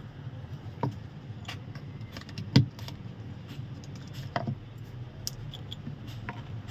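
Scattered plastic clicks and snaps of a keypad mobile phone's housing being prised open, the loudest a little over two and a half seconds in, over a steady low hum.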